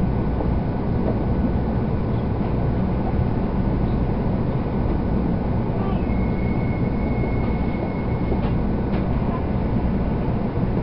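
Shinkansen cabin noise heard from inside the car as the train runs along a station platform: a steady low rumble, with a thin high whine for about two seconds past the middle.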